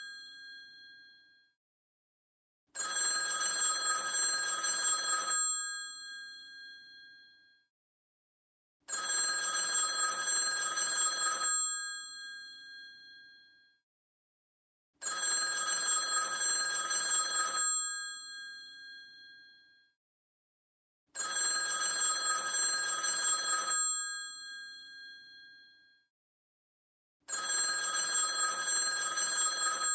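Old telephone's mechanical bell ringing in a repeating cadence. Each ring lasts about two and a half seconds with a metallic tail, followed by a pause of about three and a half seconds; five rings in all, after the fading end of an earlier one.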